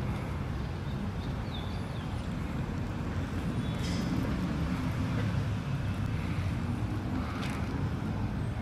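Steady low outdoor rumble, with a couple of faint clicks around the middle and near the end.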